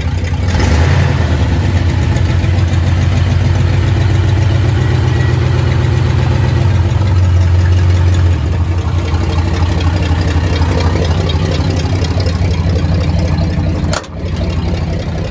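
Freshly rebuilt Ford 360 FE V8 engine of a Dentside pickup running steadily with a low hum that eases off about eight seconds in. A sudden brief break cuts the sound near the end.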